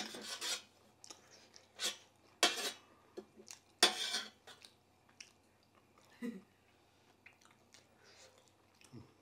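Metal spoon scraping and clinking against a brass plate and bowl: four loud scrapes in the first four seconds, then only faint small clinks.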